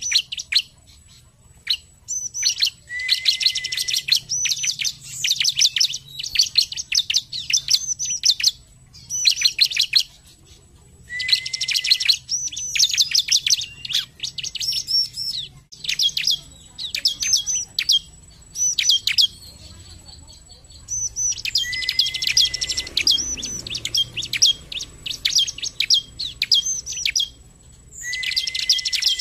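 Bar-winged prinia (ciblek) in full song: bursts of rapid, high chirping notes delivered in phrases of one to three seconds with short pauses between, a few phrases opening with a short, lower flat whistle.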